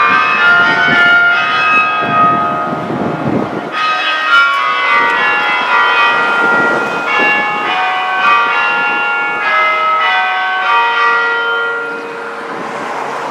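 Newly restored tower bells ringing, many bells struck one after another so their tones overlap and ring on together, dying away near the end.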